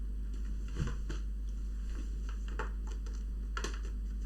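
Scattered faint clicks and taps of a laptop's plastic case parts being handled and pressed together, over a low steady hum.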